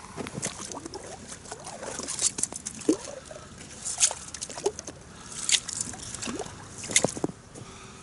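Ice scoop clearing slush and ice chips from an ice-fishing hole: irregular scrapes, clinks and splashes as it dips and flings the slush out.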